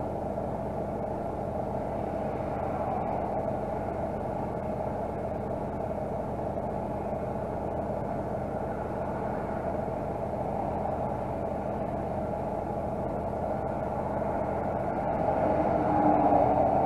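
A Mercedes-Benz Actros 480 truck's diesel engine running steadily, with a swell in level for a second or two near the end.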